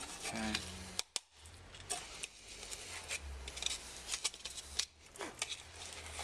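Black plastic headlight bowl being handled and turned over on a stone worktop: a run of light clicks, taps and scrapes, with two sharp clicks about a second in.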